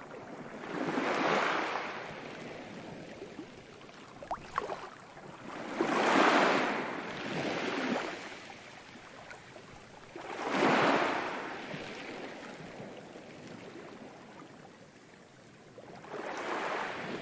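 Sea waves washing in on a shore: four slow swells of surf, each building and falling away, about four to five seconds apart, with a few faint clicks a little after four seconds in.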